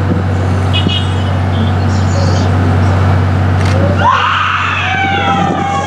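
A steady low hum under a haze of noise from the sound system; about four seconds in, a woman's voice breaks into a high, wavering wail of grief, sliding slowly in pitch.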